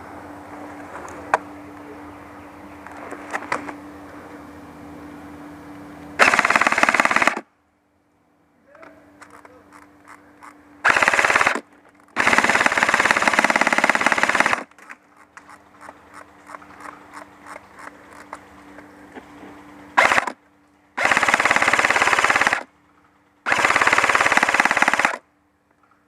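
Airsoft gun firing close up in full-auto bursts: six bursts, from a fraction of a second to about two and a half seconds long, with faint clicks and rustling between them.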